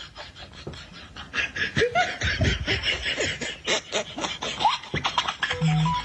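A person laughing and snickering in quick, broken bursts, followed near the end by a few short steady electronic tones.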